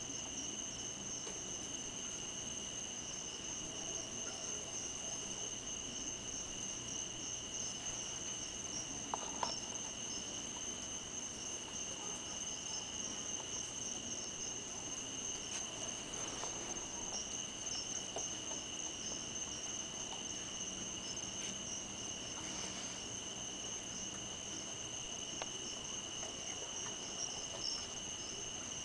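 Steady chorus of night insects such as crickets: a continuous high-pitched trill that does not let up, with a couple of faint clicks about nine seconds in.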